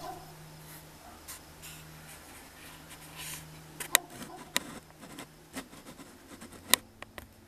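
Handling noise on a Sony DSC-H200 compact camera: rubbing and a scatter of sharp clicks as it is moved, the loudest about four seconds in and near the end. Under it a faint steady low hum that stops about two-thirds of the way through.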